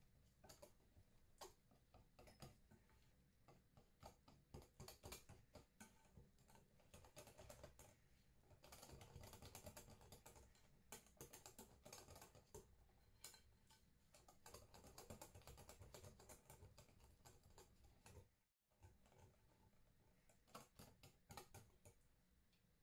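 Faint, quick clicking and scraping of a wire whisk against a glass mixing bowl as chocolate cake batter is whisked, in irregular flurries, breaking off for a moment near the end.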